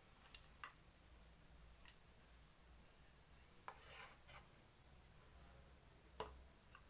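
Near silence with a few faint, scattered clicks and light taps, the loudest about six seconds in.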